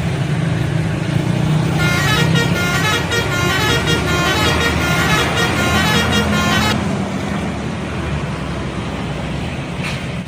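Bus telolet horn playing a quick multi-note tune, its tones stepping up and down, for about five seconds starting about two seconds in, over the bus's running engine; after the horn stops, only the engine is heard.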